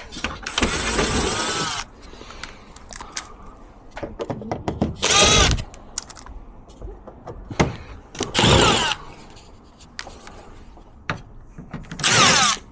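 Cordless drill-driver running in four short bursts, its motor whine rising and falling in pitch as it runs up and slows, with small knocks and clicks between the bursts.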